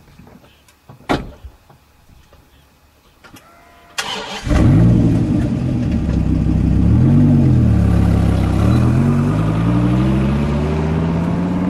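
Dodge Viper's V10 engine starting about four seconds in, after a few faint clicks. It idles loudly, gets one rev that rises and falls, then climbs steadily in pitch as the car pulls away.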